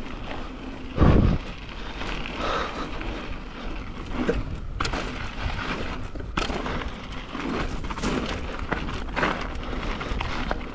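Wind buffeting the microphone over the rolling and rattling of a mountain bike on rock, with a heavy thump about a second in.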